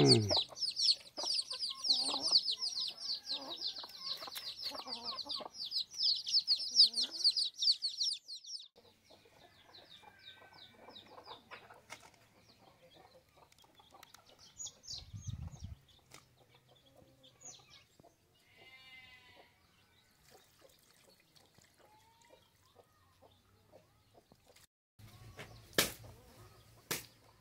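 Domestic chickens clucking, with a dense run of high, rapid calls for the first eight seconds or so, then only faint scattered calls. Two sharp knocks near the end.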